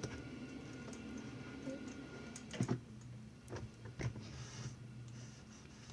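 Homemade slime, made stretchy with lotion, being swirled and worked by hand. It gives scattered small sticky clicks and pops, with a cluster of them a little before halfway, over a faint steady hum.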